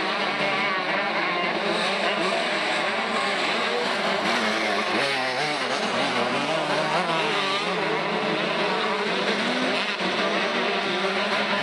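Motocross bike engines racing, revving up and down through the gears, the pitch rising and falling again and again with no pause.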